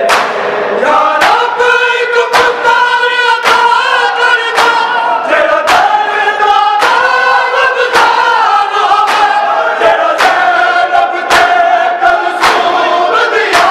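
Men chanting a Punjabi noha, a Shia mourning lament, in sustained sung lines. The mourners strike their bare chests in unison (matam), a sharp slap about once a second that keeps the beat.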